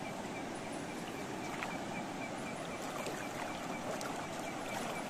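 Steady rush of river water, with a few faint clicks.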